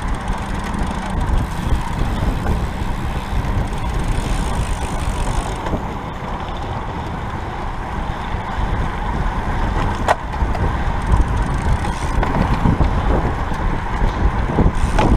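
Wind rushing over the microphone of a camera carried on a road bike at race speed, mixed with tyre noise on asphalt. A single sharp click about ten seconds in.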